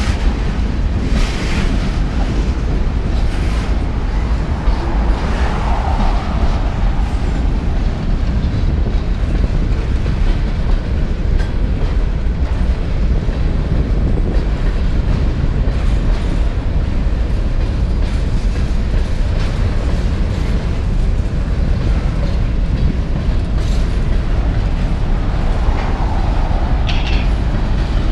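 Freight train cars (boxcars and covered hoppers) rolling past close by: a steady heavy rumble of steel wheels on rail, with scattered sharp clicks as the wheels pass over rail joints.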